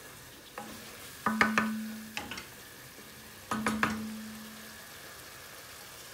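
Wooden spoon stirring and knocking against an aluminium frying pan: a cluster of knocks about a second in and another at about three and a half seconds, each followed by a short ringing from the pan. Underneath, a low sizzle of the spice masala frying on high gas.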